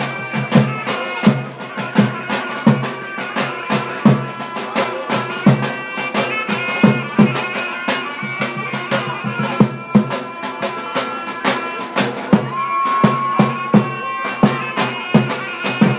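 Traditional Albanian wedding music played live: a loud reed wind instrument plays a melody over a big drum beating steadily. Near the end the reed holds one long high note.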